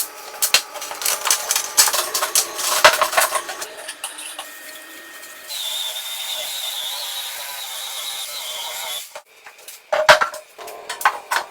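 Tools clinking and tapping on metal parts in irregular knocks, giving way about halfway through to a steady hiss with a faint high whistle that lasts about three and a half seconds and cuts off suddenly, then more clicks and knocks.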